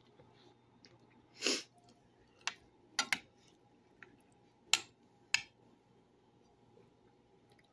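A short hissing burst about a second and a half in, then a few sharp clicks and taps spread over the next four seconds.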